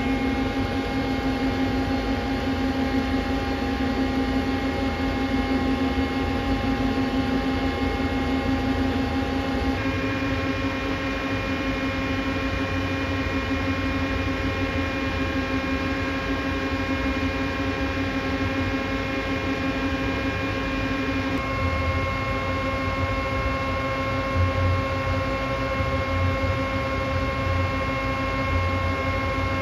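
Mori Seiki CL-200B CNC lathe running with a steady hum and several steady tones, its spindle turning for a runout check. The set of tones shifts suddenly about ten seconds in and again about twenty-one seconds in.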